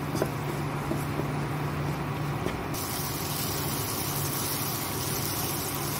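Onion-tomato masala sizzling in hot oil in a kadhai while being stirred with a wooden spatula, a steady hiss with a few light scrapes of the spatula. A steady low hum runs underneath.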